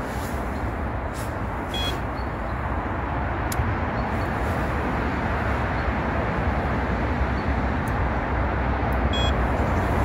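Steady hum of busy road traffic, growing slightly louder toward the end, with two brief faint beeps, one about two seconds in and one near the end.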